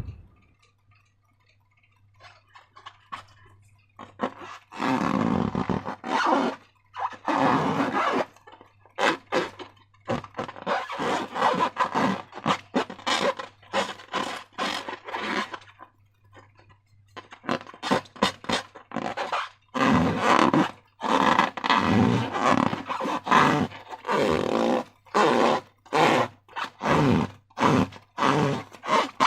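Slime and slime-filled balloons being squeezed and handled by hand: a long run of irregular short squishing and scraping noises in clusters with brief pauses.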